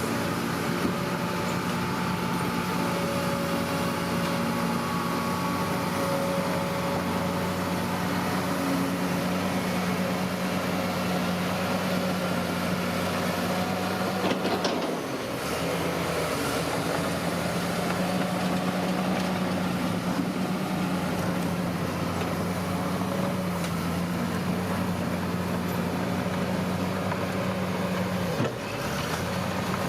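Bulldozer's diesel engine running steadily under work, dipping briefly about halfway through and again near the end.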